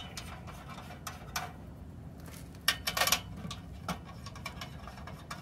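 A few light metallic clicks and rattles, with quiet between: thumbscrews being turned back into their holes on a kerosene heater's metal body.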